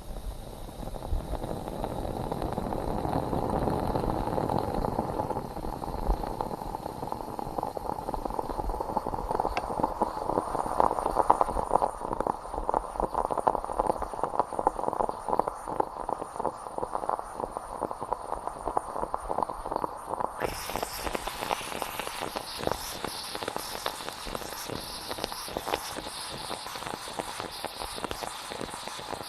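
Stovetop moka pot brewing: coffee bubbling and sputtering up into the upper chamber with a dense crackling gurgle that grows louder over the first few seconds. About two-thirds of the way in, the sound suddenly turns brighter and hissier.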